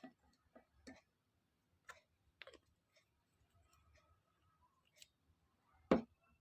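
Light, irregular clicks and taps of a spoon against a glass as the drink is handled, with one louder knock about six seconds in.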